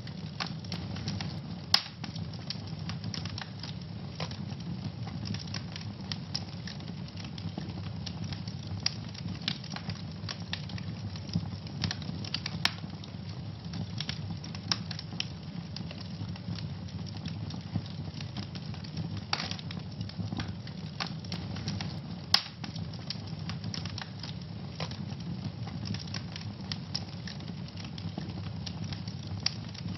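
Wood fire burning in a fireplace, crackling steadily with frequent small pops over a low rumble of the flames; two sharper, louder pops stand out, about two seconds in and about two-thirds of the way through.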